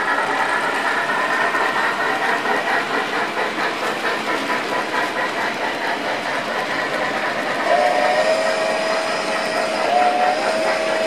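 HO-scale freight cars rolling past on model track with a steady clatter; about two-thirds of the way in, the locomotive's ESU LokSound sound decoder plays a steam whistle: two long blasts, each opening on a short higher note, through the model's small speaker.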